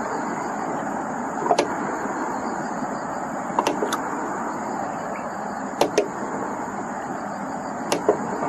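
Steady, even outdoor background noise with a thin high steady whine above it, broken by short sharp ticks about every two seconds, some of them in quick pairs.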